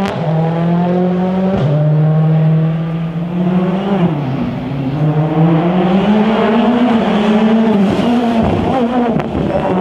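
Rally car engine (a World Rally Car's 1.6-litre turbocharged four-cylinder) running hard. The engine pitch climbs and drops with gear changes and throttle, with one sharp shift about a second and a half in and several quick lifts off the throttle near the end.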